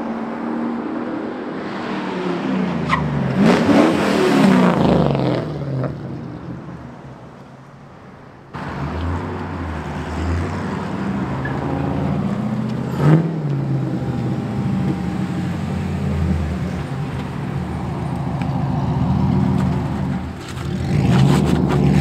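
LS V8 in a Nissan 240SX accelerating hard past, its exhaust note rising then falling as it goes by. It is then heard running on steadily and gets louder again near the end as the car comes close.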